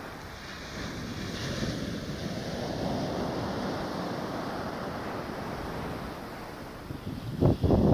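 Small ocean waves breaking and washing up a sandy beach: a steady rushing surf that swells for a few seconds after about a second in. Near the end, gusts of wind buffet the microphone with loud, low rumbling blasts.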